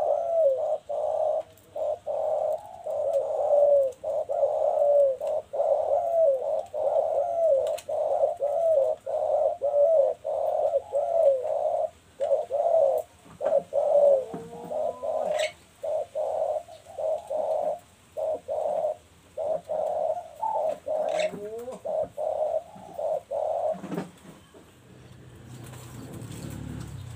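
Caged spotted doves cooing in repeated rolling phrases, one after another. The cooing stops a few seconds before the end.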